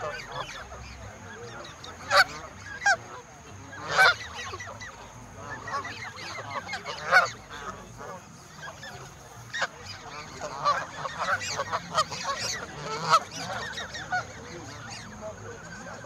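A flock of Canada geese honking, many short calls overlapping, with a few loud honks and a busier stretch of calling in the second half.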